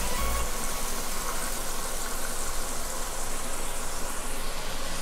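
Chicken pieces sizzling steadily in hot oil in a pot, with sautéed onion, garlic and ginger.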